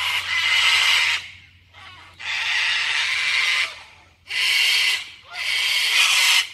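Sulphur-crested cockatoos screeching: harsh, raspy calls about a second long, coming four times with short gaps between.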